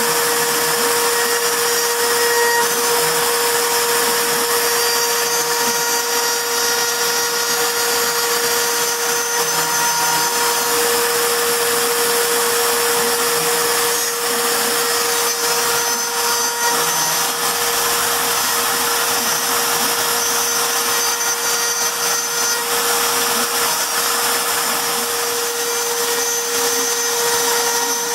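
CNC router spindle running steadily with a constant high whine while it engraves a wooden plaque.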